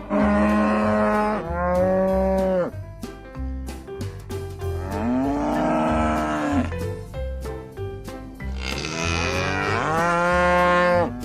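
Cattle mooing: four long calls, two close together at the start, one in the middle and a longer one near the end, over background music with a steady low beat.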